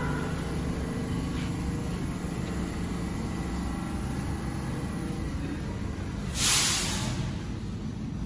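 R46 subway train standing in the station with its doors open, giving a steady low hum and rumble. About six and a half seconds in, a short loud hiss of released compressed air from the train's air system.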